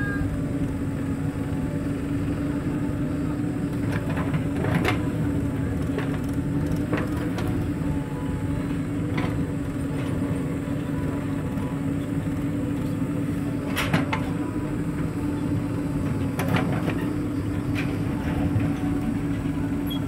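Heavy diesel machinery engine running steadily at constant speed, with a few sharp metallic clanks, the clearest about five and fourteen seconds in.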